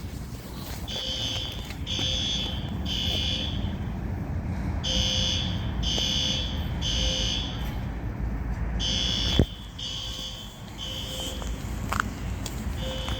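Building fire alarm sounding the three-beep evacuation pattern: three short high beeps about a second apart, a pause, then three more, over and over. A sharp knock about nine seconds in.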